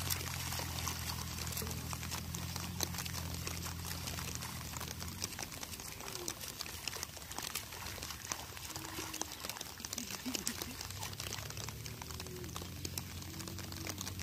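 Muddy water splashing and sloshing as a bamboo ladder leveller is dragged through a flooded paddy field.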